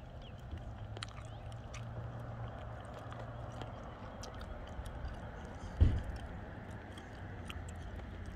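Outdoor street ambience: a steady low rumble with scattered faint ticks, and a single low thump a little under two-thirds of the way through.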